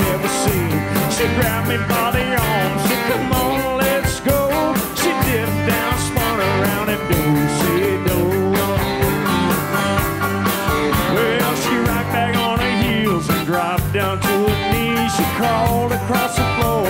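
Live country band playing with fiddle, guitars, bass and drums over a steady drum beat.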